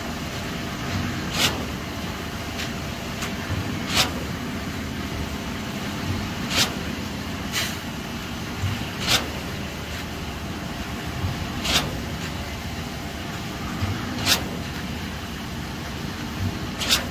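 Concrete pump running steadily, with a sharp knock about every two and a half seconds as it changes stroke while pushing concrete.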